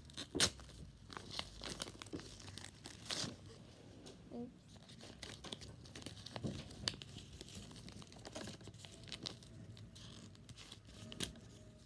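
Small plastic packaging bag being torn open and crinkled by hand: a run of irregular sharp crackles and snaps.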